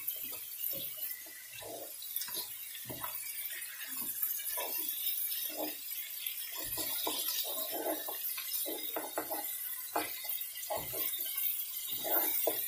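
Mutton chops frying in oily spice masala in a metal pan, with a steady sizzle, while a wooden spatula stirs and scrapes them against the pan in many short, irregular strokes.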